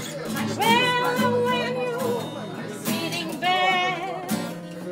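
Acoustic guitar strummed in a steady rhythm, with a harmonica on a neck rack playing long held notes over it, twice in a row.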